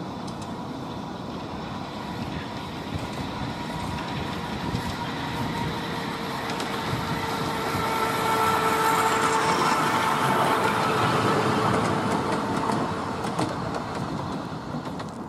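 Blue 'Planet'-class battery-electric miniature locomotive and its passenger carriage running past on the track: a steady rumble of wheels on rail with a thin whine through it. It grows louder as the train draws near, is loudest for a few seconds around the middle, then fades as it moves away.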